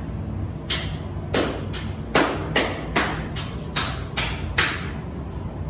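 A run of about ten sharp knocks or taps, evenly spaced at roughly two and a half a second, starting about a second in and stopping near the end, over a steady low rumble.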